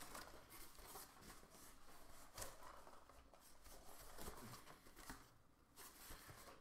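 Near silence: room tone with a few faint soft clicks.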